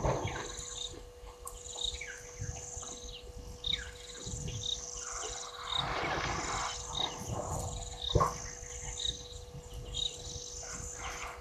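Elephants feeding in dense bush: leaves rustling and branches being pulled, with a sharp crack about eight seconds in. A high chirp repeats about once a second over a steady high chorus and a faint hum.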